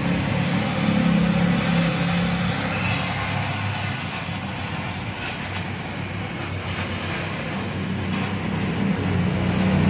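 Oxy-fuel gas-welding torch hissing steadily as its flame heats exhaust pipe and filler rod, over a low steady hum.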